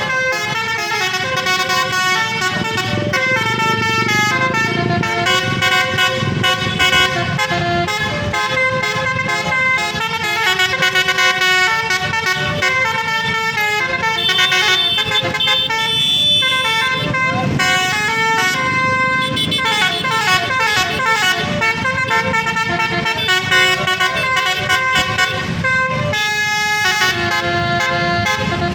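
Indonesian 'telolet' bus horn, a multi-tone Basuri horn set, playing a long string of musical honking tunes, one held chord-like note after another changing every second or so, over the rumble of the bus and road.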